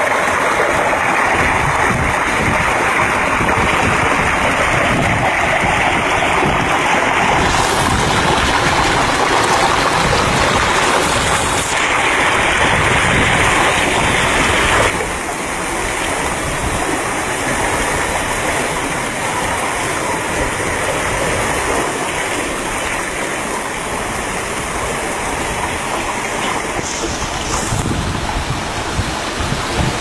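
Mountain stream rushing over a rock cascade: a steady water noise that becomes somewhat quieter about halfway through.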